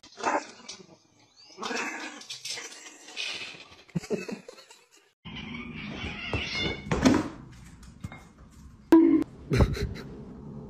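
Cats vocalizing in a string of short home-video clips, with short irregular cries separated by gaps. The background noise changes abruptly at the cuts between clips.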